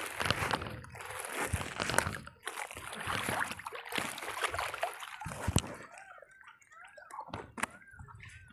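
Lake water sloshing and splashing as a green net sack is shaken and pushed about in it. The splashing eases off after about six seconds, leaving fainter trickles and drips.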